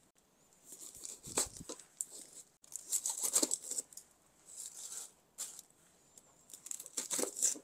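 Onions being peeled and sliced by hand: dry onion skin tearing and crackling, and a kitchen knife cutting on a wooden cutting board, in irregular scratchy strokes with short pauses. There is one duller knock about one and a half seconds in.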